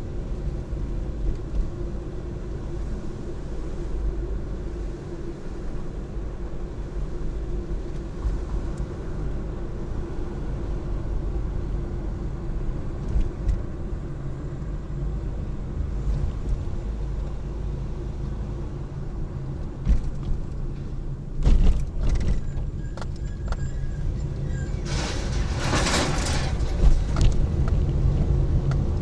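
A car running on the road: steady engine and road hum, with a couple of thumps about 21 seconds in and a louder rush of hiss a few seconds before the end.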